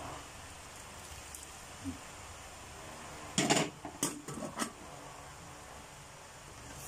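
Cookware clattering in the kitchen: a light knock, then a quick run of sharp knocks and clicks from pans and a utensil a little past halfway, over a steady low hiss.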